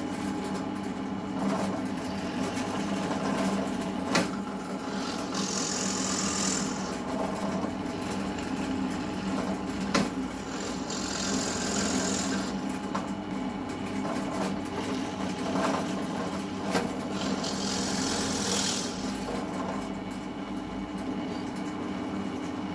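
Bench drill press motor running with a steady hum while its bit bores holes through a merbau hardwood upright. Three times the cut adds a high hiss lasting a second or two, and there are two sharp clicks in between.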